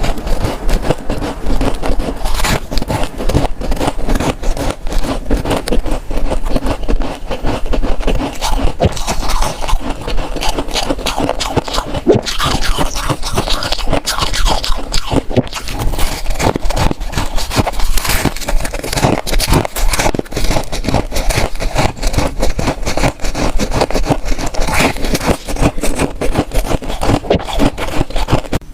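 Close-miked freezer frost being scraped and crunched in a rapid, continuous run of crackly strokes.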